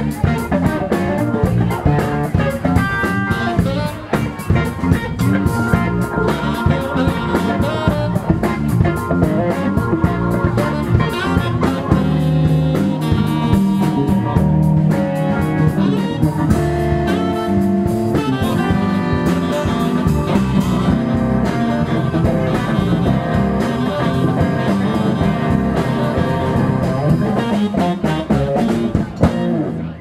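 Live band playing an instrumental: saxophone, electric guitars and drum kit, with a steady beat and held sax notes, stopping abruptly near the end.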